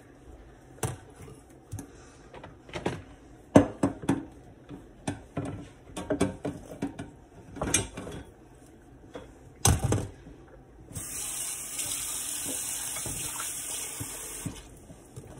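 A kitchen knife tapping and scraping chopped onion and green pepper across a wooden cutting board: irregular knocks, the loudest about three and a half seconds in. Then a kitchen tap runs steadily for about three and a half seconds and stops, filling a bowl of the chopped vegetables with water.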